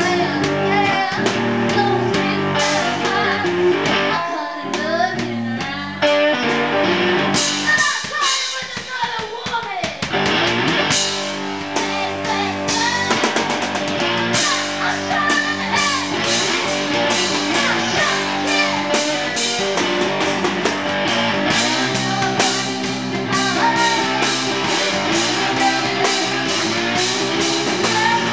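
Live rock duo playing: electric guitar chords and a drum kit hit hard and fast, with a woman singing at times. About eight seconds in the low guitar chords drop out for a couple of seconds under a run of drum hits, then come back.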